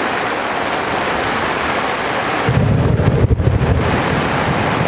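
Heavy rain falling steadily in a tropical thunderstorm, with a low rumble of thunder about halfway through that lasts under two seconds.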